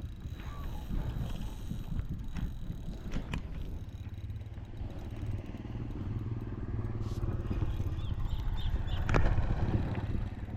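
A small engine runs steadily nearby, getting louder in the second half, with scattered clicks and one sharp click near the end.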